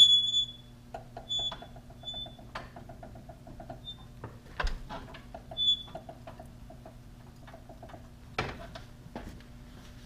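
Metal clinking as the John Deere 1025R's auto-connect assembly is worked loose and lowered, with a long run of light, quick, even clicks and two sharper knocks, one midway and one near the end, over a steady low hum.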